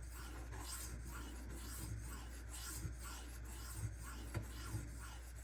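Steel knife blade being stroked back and forth on a Shapton Kuromaku 1500-grit whetstone, a faint rhythmic scraping at about two strokes a second with a few light knocks, while raising a burr on the edge.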